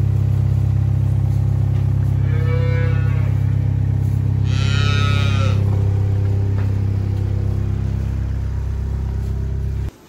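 Holstein cows mooing twice, a shorter call about two and a half seconds in and a louder one about five seconds in, over a steady low hum that cuts off abruptly near the end.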